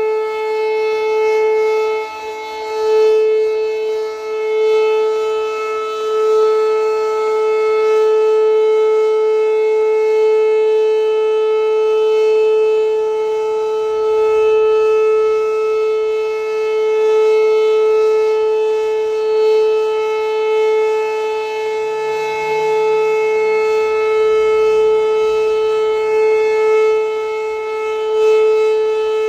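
Outdoor tornado warning siren sounding a steady alert tone during a test: one held pitch with overtones, its loudness wavering slightly.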